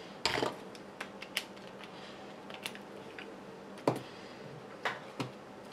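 Irregular light clicks and knocks of small RC-kit parts and screws being handled and fitted, about seven separate taps with the sharpest a little before the four-second mark.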